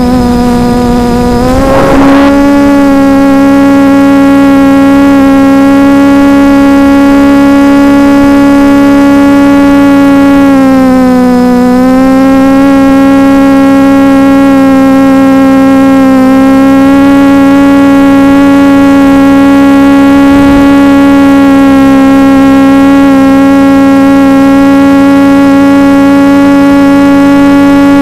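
Reptile 500 quadcopter's motors and propellers humming loudly and steadily in flight. The pitch rises about two seconds in as it throttles up to climb, dips briefly near the middle, then holds.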